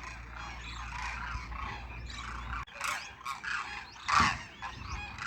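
A flock of demoiselle cranes calling, many croaking calls overlapping, with one louder call about four seconds in. A low rumble under the first half stops abruptly.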